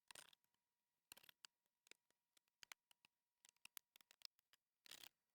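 Faint scattered clicks and short light scrapes of small parts being handled inside an open laptop, with small clusters about a second in and again near the end.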